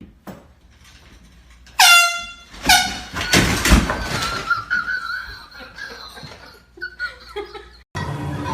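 Air horn blasting twice in quick succession about two seconds in, the first blast longer, in a small room. A noisy burst follows, then a long wavering high-pitched sound.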